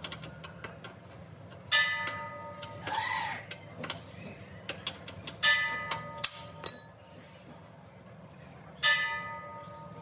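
Metal struck three times, ringing for about a second after each hit. Between the hits there are light clinks and a short scrape.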